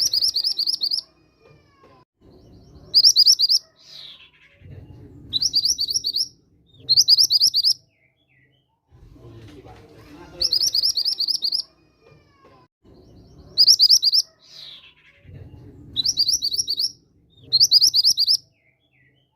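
Recorded song of the mantenan gunung bird played as a lure: short, rapid, high-pitched trills of about a second each, in groups of four, the same sequence repeating about every ten seconds over a faint low murmur.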